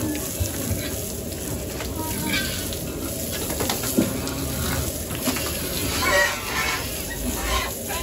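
Pigs squealing and grunting while a hose spray hisses steadily over them; the loudest squeals come about six seconds in.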